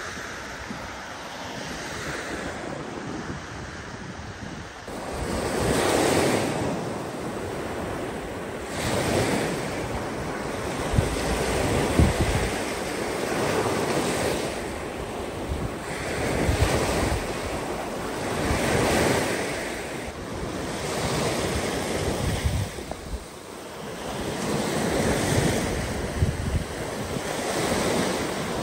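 Small Baltic Sea waves breaking and washing up a sandy beach, the surf swelling and fading every two to three seconds, quieter for the first few seconds. Wind buffets the microphone throughout.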